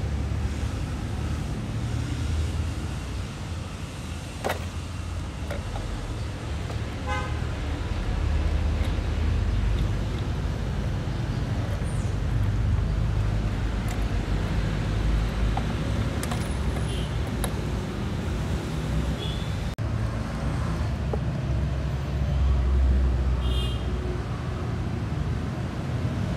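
Steady rumble of road traffic, with a few brief high-pitched tones and occasional sharp clicks.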